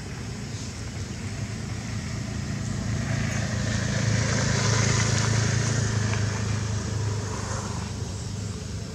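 A motor vehicle passing: a low engine hum with road noise that swells to its loudest about halfway through, then fades.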